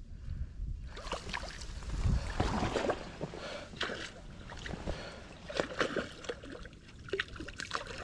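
A hooked rainbow trout splashing at the surface as it is drawn into a mesh landing net, with water sloshing through the net. The splashes come in irregular bursts, heaviest about two to three seconds in.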